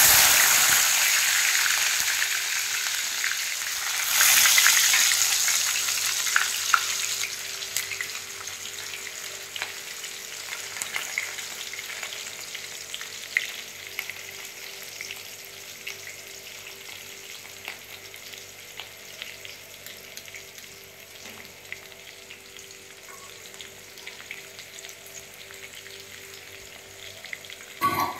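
Chopped onion tipped into hot oil in an aluminium kadhai: a loud sizzle bursts up at once and swells again about four seconds in. It then settles into a quieter, steady frying hiss with scattered crackles and pops.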